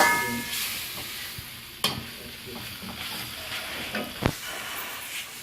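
Spice paste frying in hot oil, sizzling and being stirred in the pan, with the sizzle dying down over the first couple of seconds. Two sharp knocks sound about two and four seconds in.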